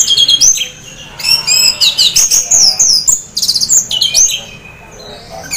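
Orange-headed thrush singing a rapid, varied song of loud whistled phrases and trills, in short bursts with brief pauses: the relaxed 'teler' song of a bird half in breeding condition.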